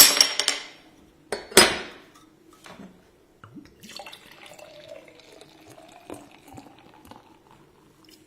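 Glasses clinking together twice, each strike ringing on briefly, followed by a quieter stretch of liquid being poured into a glass.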